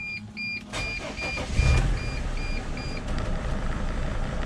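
Dodge Sprinter van's dashboard warning chime beeping about twice a second, then the van's 2.7-litre five-cylinder diesel cranks and starts about a second and a half in and runs on steadily; the chime stops about three seconds in.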